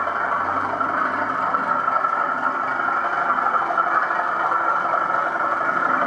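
Loksound XL v4.0 DCC sound decoder in an O gauge model diesel locomotive playing a steady diesel engine running sound through the model's speaker.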